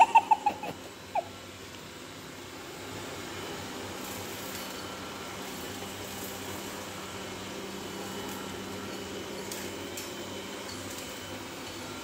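Robot vacuum running with a steady fan hum as it moves across a wooden floor. Right at the start there is a quick run of five short, loud, high chirps, and one more about a second in.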